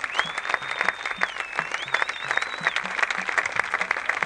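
Audience applauding, with one long high whistle over the clapping that dips and climbs again, ending about three seconds in.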